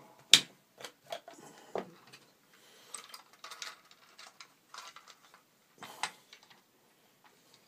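Plastic model kit parts being handled on a cutting mat: scattered light clicks, taps and rustles of hard plastic, with one sharp click just after the start and another near the end.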